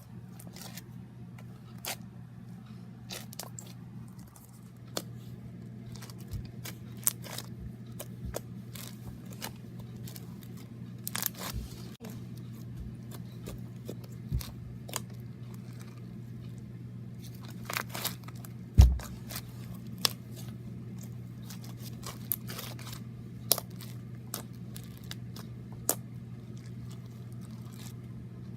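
Slime being squished and worked by hand, with scattered crackles and clicks over a steady low hum. There is one louder thump about nineteen seconds in.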